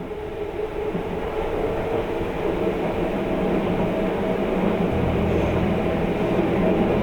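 Sunrise Izumo sleeper train, a 285-series electric train, running along the line: a steady rumble and hum that grows louder. The low hum steps up about five seconds in.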